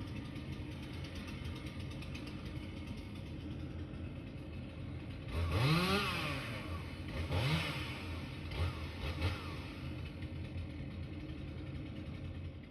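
A motor vehicle's engine running steadily, its pitch rising and falling several times from about five seconds in, the first rise the loudest.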